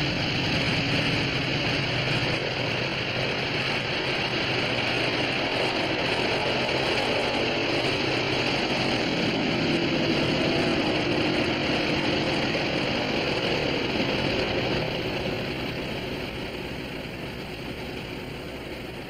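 Engines of a twin-engine propeller airplane running steadily, then dying away over the last few seconds as the plane shuts down after landing.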